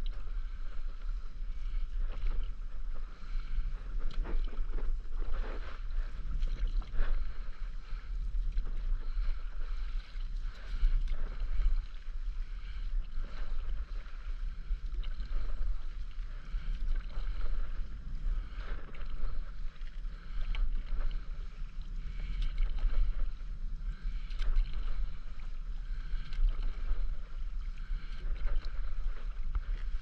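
Stand-up paddle strokes through calm sea water, the blade dipping and pulling with a splash about once a second in a steady rhythm, over a constant low rumble.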